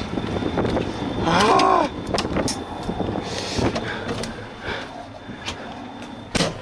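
A MAZ truck's cab door and fittings clunking as someone climbs out of the cab: several sharp knocks, the loudest near the end. The engine's low idling rumble quietens about two seconds in, and a short voice-like sound comes at about the same time.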